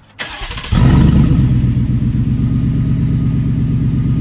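Ford F-150 engine starting with its exhaust system removed: the starter cranks briefly, the engine catches under a second in and runs at a loud, steady idle through the open exhaust.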